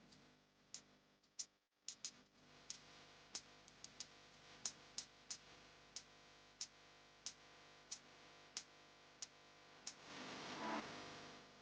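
Faint background music with held tones under a steady ticking beat, about three clicks every two seconds. A brief rush of noise rises near the end.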